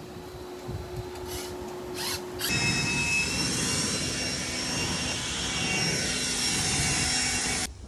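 A power tool starts about two and a half seconds in and runs steadily at full speed with a high whine, then cuts off abruptly near the end. Before it, a faint steady hum with a few sharp clicks.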